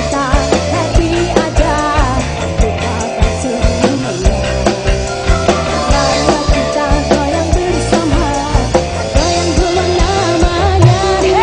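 Live dangdut koplo band playing with a woman singing into a microphone over a steady drum beat.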